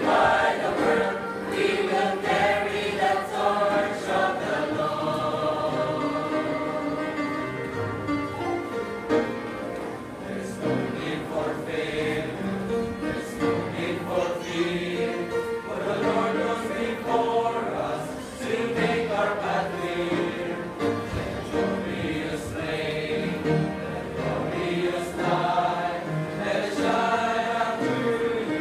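Mixed church choir of men and women singing a hymn together in sustained phrases.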